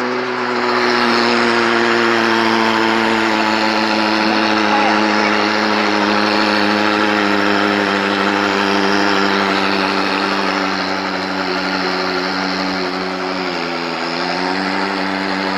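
Electric motor coil taping machine running steadily, a motor whine with several even tones over a hiss. Near the end the pitch dips briefly, then comes back up.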